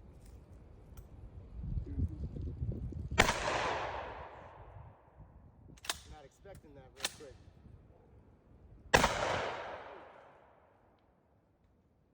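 Two shotgun blasts about six seconds apart, each echoing away over a second or more, with two short sharp clicks between them.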